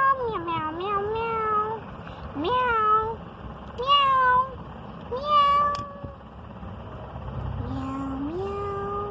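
A series of cat meows, about one every second and a half, the last one lower and rising near the end.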